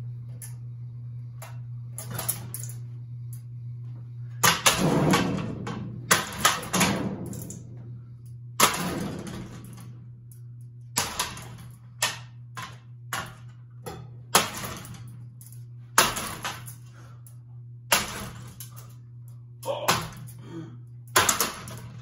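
A damaged ceiling fan running with a steady low motor hum, its bent, wobbling blades giving a series of loud clanking knocks about every one to two seconds. The knocks are heaviest a few seconds in.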